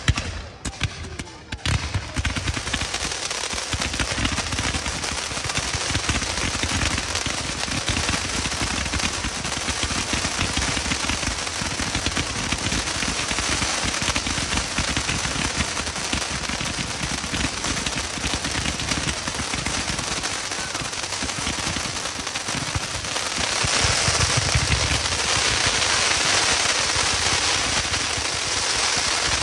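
Fireworks firing in a dense, unbroken barrage of rapid shots and crackle, like machine-gun fire, with low comets launched in quick volleys. A few heavy bangs open it, and it grows louder about three-quarters of the way through.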